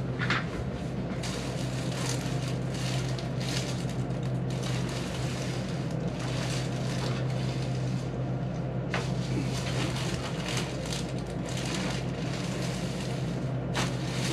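A steady low hum with soft rustling and handling noises over it.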